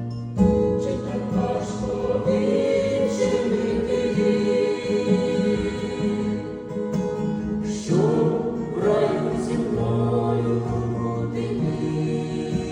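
Gospel-style music with choir-like singing: sustained chords and voices holding notes without words.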